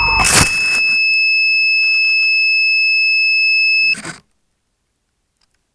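RC airplane hitting the ground in grass with one loud thud just after its falling motor whine stops. A steady high-pitched electronic tone then runs on and cuts off suddenly about four seconds in, leaving silence.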